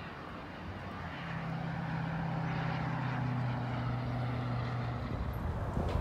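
A steady low engine drone, a few unchanging tones, sets in about a second in and stops abruptly about five seconds in. A broad hiss runs underneath.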